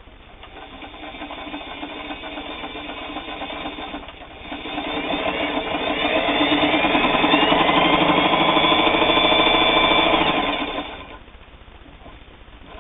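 Singer 223 all-metal sewing machine stitching a straight stitch through two layers of heavy denim. It runs at a moderate speed, then speeds up about four and a half seconds in, its motor whine rising in pitch, and stops about eleven seconds in.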